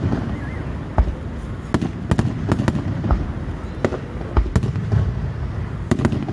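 Aerial fireworks going off: about ten sharp bangs and crackles at irregular intervals over a steady low rumble of booms.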